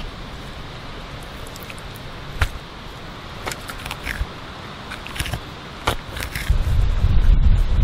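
Knife scraping the scales off a butterflied fish on a wooden stump: scratchy scraping broken by several sharp clicks. Near the end a loud low rumble sets in and covers it.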